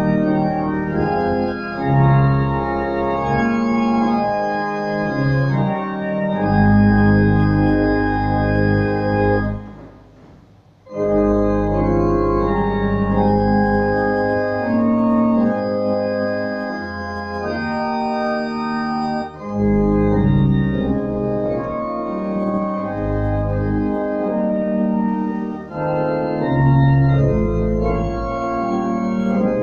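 Church organ playing a hymn tune in slow, held chords, with a short break about ten seconds in before the playing resumes.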